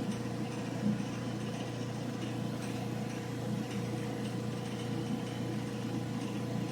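General Electric gas clothes dryer running steadily with its drum removed: an even motor hum with a steady tone over it.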